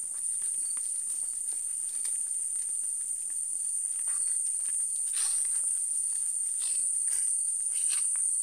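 Crickets trilling in a steady high-pitched drone, with scattered footsteps and scuffs as people walk over the ground, a few louder ones in the second half.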